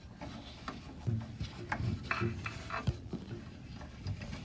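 A 5 mm hex key turning a bolt loose at a track wheel: intermittent scraping and rubbing of metal on metal, with small clicks as the key is worked and repositioned.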